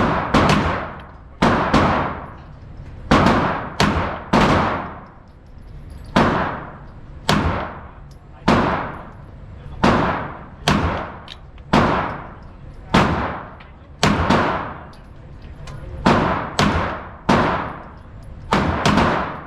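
9mm pistol being fired at the range: a steady string of single shots, about one a second, each a sharp crack followed by a short ringing echo.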